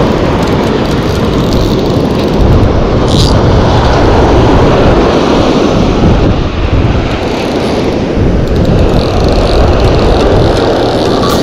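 Wind buffeting the microphone over breaking surf: a loud, rough rush of noise that swells and eases.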